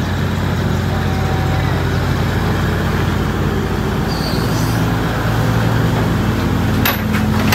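Heavy diesel engine running steadily at idle, a low even hum whose note shifts slightly about four seconds in; a few sharp clicks near the end.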